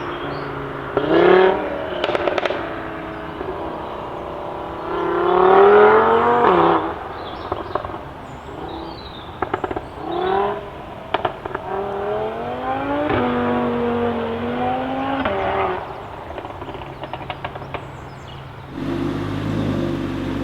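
Modified Audi RS3's turbocharged five-cylinder engine, fitted with an aftermarket IROZ downpipe, revs up sharply about four times. Between the revs, as the revs fall, the exhaust pops and crackles in quick bursts. Near the end the sound changes abruptly to a steadier engine running.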